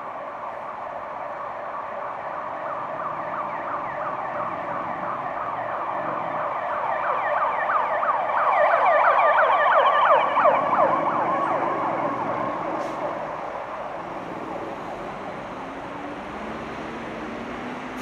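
Emergency vehicle siren wailing in fast rising yelps, about four a second, over steady city traffic. It grows louder to a peak about halfway through, then fades as it passes and moves away.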